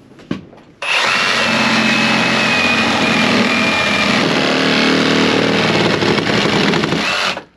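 Cordless reciprocating saw cutting through an old wooden frame timber in a boat hull. It starts about a second in, runs steadily and stops suddenly near the end.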